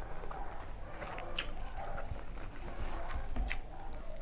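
Close-miked chewing and wet mouth sounds of someone eating rice and curry by hand, with a few sharp smacks.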